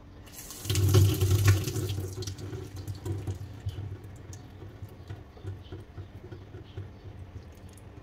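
Kitchen faucet running water into a nano-tape balloon held over its spout, filling it. The rush starts about half a second in and is loudest for the first second or so, then runs on more quietly as the balloon swells.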